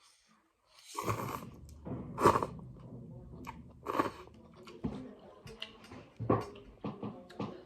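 Close-up mukbang eating sounds: slurping and chewing of thukpa-style vegetable noodle soup, irregular wet mouthfuls after about a second of quiet, the loudest a little past two seconds and at four seconds.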